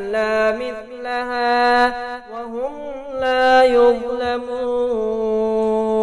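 A male voice chanting Arabic supplication in slow, drawn-out melodic notes, holding each note long with a slide in pitch about halfway through, in the style of Qur'anic tajwid recitation.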